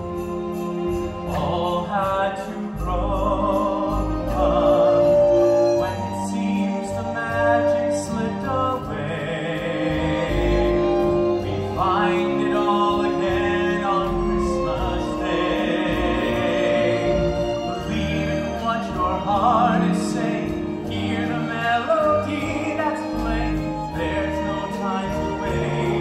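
A solo singer on a microphone singing over orchestral backing music, with long held notes that waver with vibrato.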